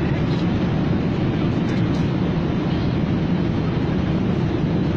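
Steady, deep cabin noise of an airliner in flight: an even drone of engines and rushing air.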